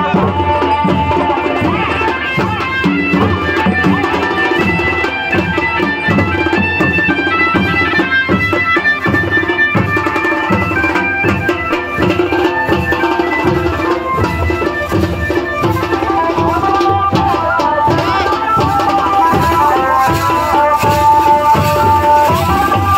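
Music with a steady drum beat of about two strokes a second and a bright melody line over it.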